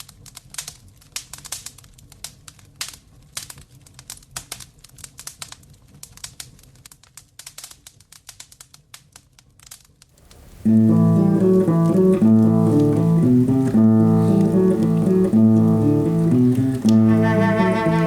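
Wood fire crackling in a fireplace, with irregular pops and snaps, for about ten seconds. Then a string quartet starts playing sustained chords.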